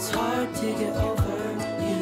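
Background music: a song with guitar and a steady beat.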